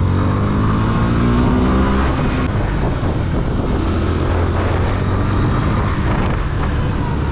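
Motorcycle engine pulling away, its note rising over the first couple of seconds, then running steadily under a heavy rush of wind and road noise while riding through traffic.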